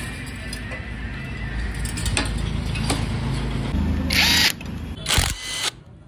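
A handheld electric power tool of the drill or nut-runner kind, running with a steady whir. It gives a louder whine about four seconds in and a short sharp burst just after five seconds.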